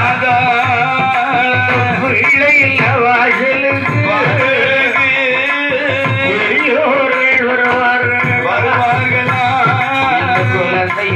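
Kaniyan koothu folk music played through loudspeakers: a voice sings a wavering, ornamented melody over a steady beat on the magudam frame drum.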